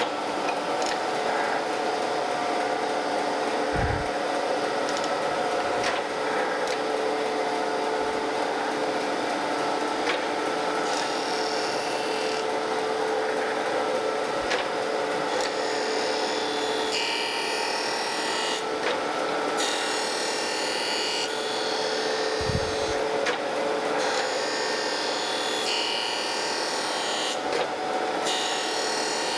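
Landis surface grinder running with a steady motor and wheel hum as its reciprocating table carries straight edge castings under the grinding wheel. A grinding hiss comes and goes on each pass of the wheel over the castings, more and more often in the second half, with two low thumps. This is a light cleanup pass on the rough-milled back face.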